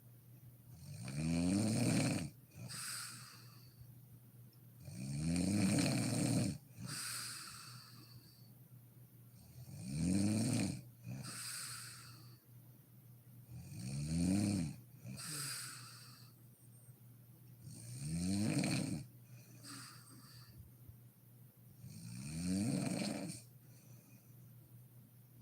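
A woman snoring in her sleep, in a steady rhythm of six loud snores on the breath in, about one every four seconds, each rising slightly in pitch and each followed by a softer breath out.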